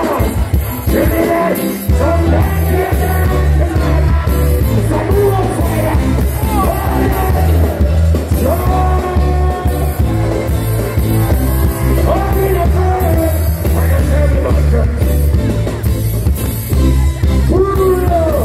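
Live reggae band playing with a male singer singing over it; a heavy bass line comes in about two seconds in.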